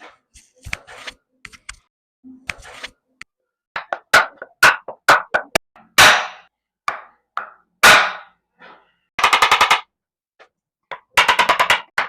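Sharp cracks and thuds of a chiropractic lumbar adjustment: a scattering of faint knocks, then a run of loud cracks from about four seconds in, two of them longer and ringing. Near the end come two bursts of rapid, evenly spaced tapping.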